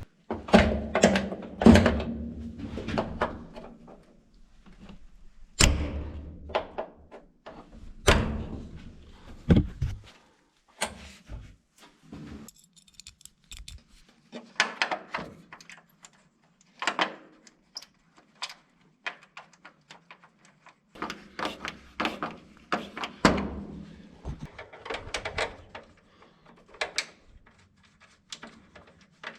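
Shovel working crushed gravel: a string of irregular crunching scrapes and thunks with short pauses between, busiest in the first third and again toward the end.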